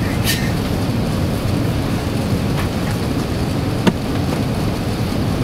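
Steady low roar inside the passenger cabin of an Airbus A380 on approach: engine and airflow noise. A few faint clicks ride on it, with one sharp click just before four seconds in.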